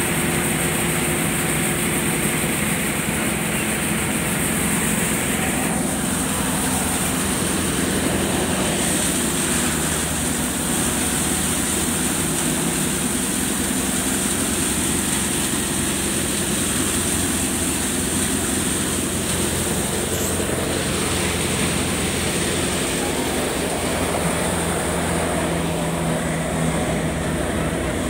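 Multicrop thresher running steadily while threshing mustard: a continuous mechanical drone with a steady high hiss above it.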